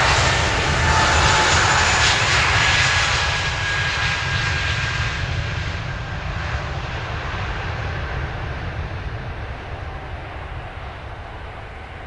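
Airbus A320-family airliner's turbofan engines passing close by: a loud jet roar with a high whine whose pitch slides slightly lower, then fading steadily as the aircraft moves away.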